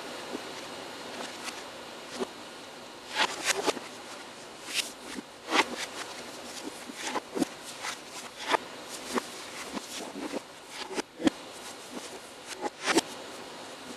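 A dancer's shoes stepping, stomping and scuffing on the floor in irregular sharp knocks, over a steady background hiss.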